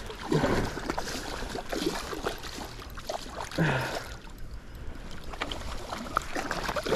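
A hooked trout thrashing and splashing at the surface close to the bank, with water sloshing as a landing net is pushed in to scoop it. The splashes come in uneven bursts.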